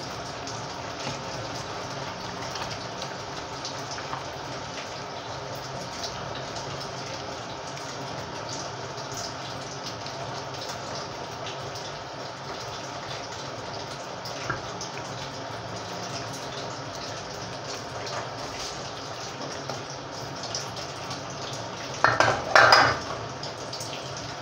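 Wooden spoon stirring a large pot of simmering leafy vegetable soup: soft scraping and sloshing with small clicks over a steady bubbling hiss. A short, loud clatter of two quick knocks about 22 seconds in, louder than anything else.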